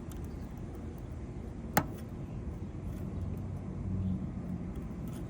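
Steady low rumble of road traffic, with a faint engine hum a few seconds in and a single sharp click about two seconds in.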